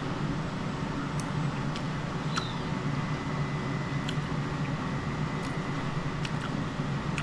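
A steady low hum with a faint thin whine above it and a few faint clicks.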